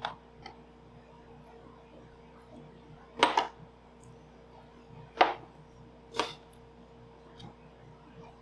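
Glassware knocked and set down on a table: a few short, sharp knocks, the loudest a quick double knock about three seconds in, then single ones about five and six seconds in, over a faint steady hum.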